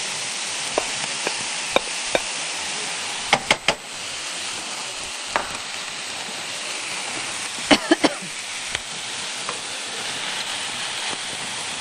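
Shrimp and sautéed onion, garlic and peppers sizzling steadily in oil in a frying pan, with a few sharp clicks of a utensil against the pan, a cluster about three and a half seconds in and another about eight seconds in.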